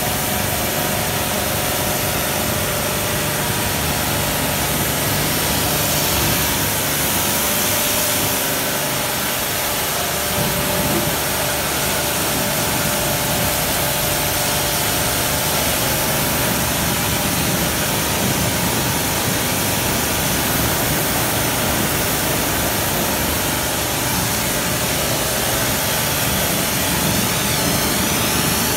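Pressure washer running steadily: the pump motor hums under the constant hiss of the high-pressure water jet striking a scooter and the wet floor.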